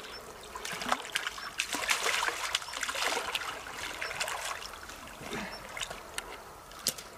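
Hooked red carp splashing at the surface of shallow pond water while being played on a pole rod: irregular splashes and trickling water, busiest in the first three seconds or so.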